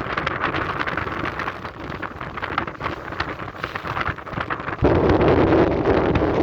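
Strong wind buffeting the microphone in gusts. About five seconds in it suddenly gets louder, with a heavier low rumble.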